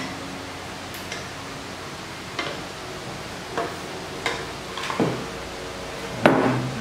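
Metal spoon and wooden spatula scraping and knocking against a frying pan while mixing rice and vegetables: a few irregular clicks and scrapes, the loudest knock near the end.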